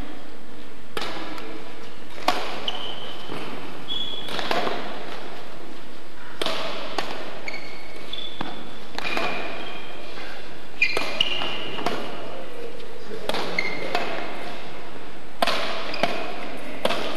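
Badminton rally: sharp racket strikes on the shuttlecock, about one every second or two, with short squeaks of trainers on the sports-hall floor between them.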